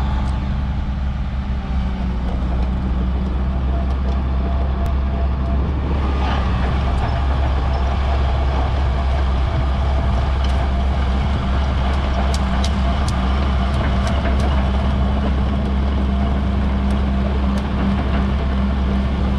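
Hyundai Robex 450LC-7 excavator's diesel engine running steadily with a hydraulic whine as the machine swings and travels. A few sharp clicks come in the second half.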